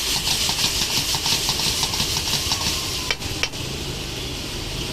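Metal ladle stirring onions, garlic and chilli with freshly added soy sauce in a hot pan of oil: quick, even scraping strokes over a sizzle. The stirring stops about three seconds in with two sharp clacks, and a steady hiss carries on.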